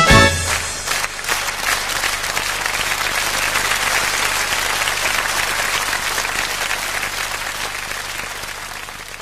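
An audience applauding after a song with brass accompaniment ends on its last chord at the very start; the clapping is steady, then slowly dies away near the end.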